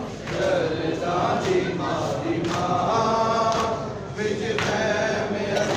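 A group of men chanting a noha together, a Shia lament for the mourners of Karbala sung in phrases as part of matam.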